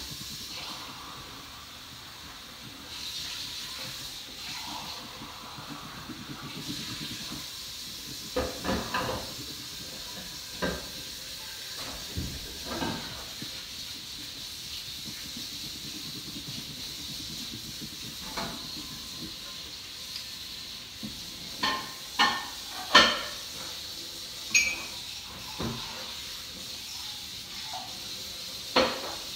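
Coloured pencil scratching on paper while shading in, a soft steady hiss. Short sharp knocks and clicks come here and there through the second half, the loudest about two-thirds of the way through.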